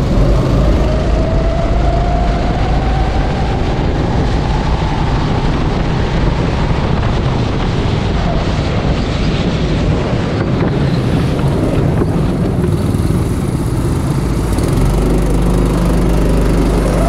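Go-kart engine heard onboard, rising in pitch as the kart accelerates over the first few seconds, under steady wind rush on the camera microphone. Near the end the engine speeds up again after the kart has locked its rear wheels and slid off onto the grass.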